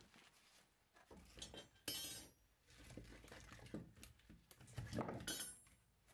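Split firewood logs knocking and clunking against each other as they are lifted off a woodpile, a handful of hard wooden knocks, the loudest about two seconds in and again about five seconds in.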